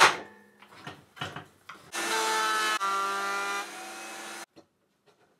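Router in a router table, fitted with a 6 mm straight bit, cutting a widening pass along a groove in a plywood drawer side. The motor's whine and cutting noise start about two seconds in, ease off after about a second, and cut off abruptly near the end. A couple of light wooden knocks come before it.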